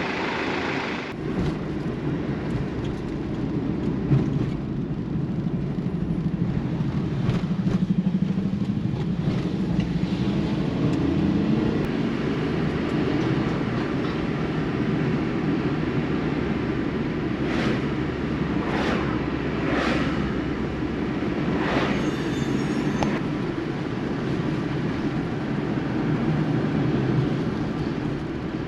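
Steady low rumble of road and engine noise inside a moving car, with a few brief higher hisses about two-thirds of the way through.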